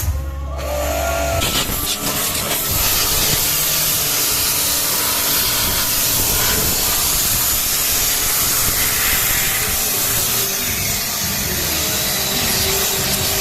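High-pressure car-wash water pump running and spraying, a loud, steady hiss of the water jet that comes up to full strength about a second and a half in.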